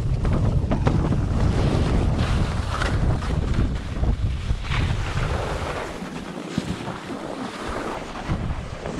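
Wind buffeting an action camera's microphone during a downhill ski run, with skis hissing and scraping over snow. The low wind rumble eases about six seconds in.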